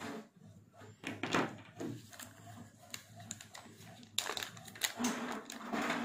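Small clear plastic zip bag being handled: scattered clicks and taps at first, then continuous crinkling from about four seconds in.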